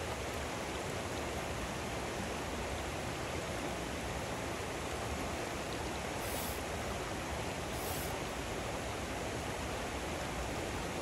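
Shallow river riffle rushing over rocks: a steady wash of flowing water.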